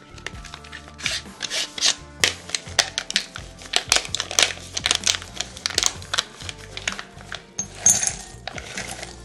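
Close-miked food-preparation handling: a quick run of clicks, taps and short scraping rustles, with a longer rustling scrape near the end, over soft background music.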